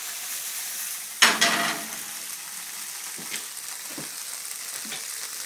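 Diced food sizzling in a frying pan on a gas hob, a steady hiss, with a sudden louder burst about a second in and a few light knocks.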